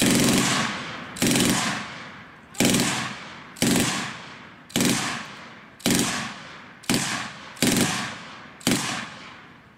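German MG42 7.92 mm machine gun firing nine short bursts, about one a second, each burst dying away in an echo.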